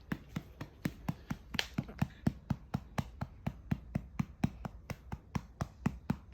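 A hand steadily patting a young baby's back, about four pats a second, to bring up a burp after a feed.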